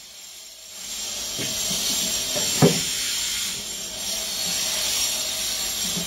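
A steady hiss with a few sharp knocks, the loudest about two and a half seconds in.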